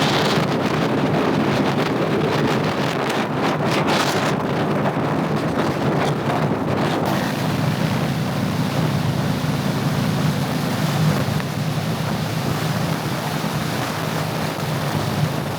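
Wind buffeting the microphone over the steady running of a Harley-Davidson V-twin motorcycle at road speed.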